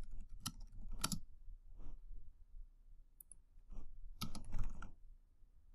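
Computer keyboard keys clicking as text is typed, in scattered keystrokes with a denser run about four seconds in.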